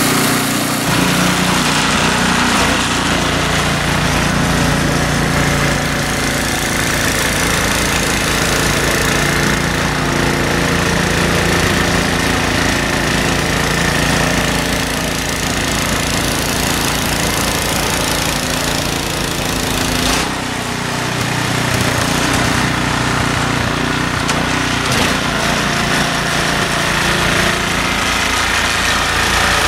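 Ariens Deluxe 30 snow blower's 306 cc single-cylinder four-stroke engine running steadily. Its low beat strengthens about a second in and dips briefly about two-thirds of the way through before picking up again.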